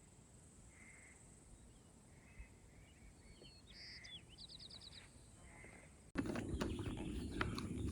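Faint bird calls: short, even notes repeating about every second and a half, with a brief rapid trill partway through. About six seconds in, the sound jumps suddenly to a much louder run of clicks and rustling.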